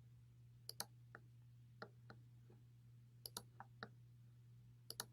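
Faint clicks of a computer mouse: a few single clicks and three quick double clicks, over a low steady hum.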